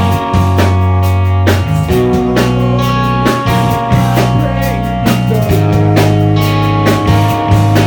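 Rock band playing live: guitar chords held over deep bass notes, with a steady drum beat of about two hits a second.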